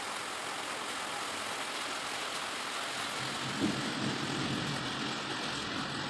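Heavy monsoon rainfall, a steady hiss, with a low rumble joining about halfway through.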